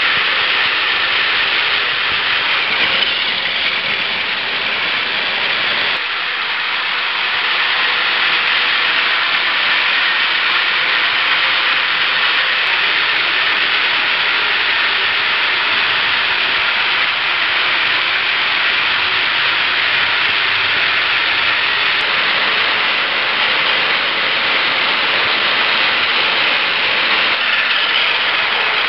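Several battery-powered Plarail toy trains running on plastic track: a steady whirring, rattling noise of small motors, gears and plastic wheels.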